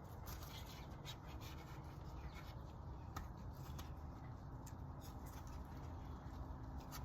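Faint rubbing and scattered light clicks of hands working oil onto small rubber O-rings on oil filter housing parts.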